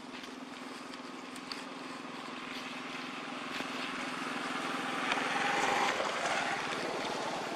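A motor vehicle's engine passing by: a steady low hum with a rushing engine noise that grows louder to a peak about five to six seconds in, then eases off.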